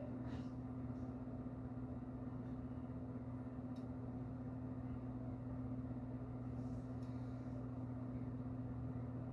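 A steady low hum, unchanging in pitch, with a couple of faint brief clicks.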